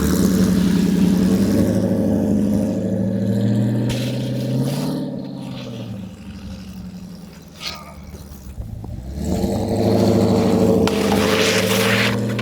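Car engine running hard under acceleration, its pitch climbing about four seconds in, then easing off before pulling hard again near the end.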